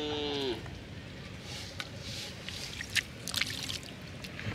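Wet mud and water squelching and sloshing as a hand digs into a water-filled fish hole in the mud, with small sharp wet clicks and slaps. A cow's moo ends about half a second in.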